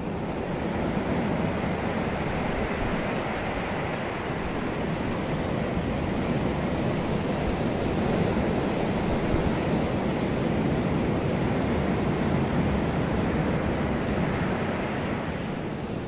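Ocean surf breaking and washing up a beach: a continuous rush of water that swells in the middle and eases near the end.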